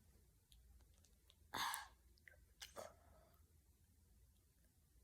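Near silence, broken by one short sigh-like exhale about a second and a half in and a few faint mouth clicks.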